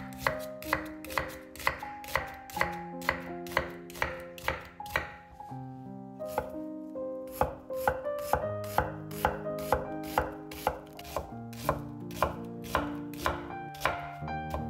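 A chef's knife dicing an onion on a wooden cutting board: a steady run of knife strokes hitting the board, about two a second.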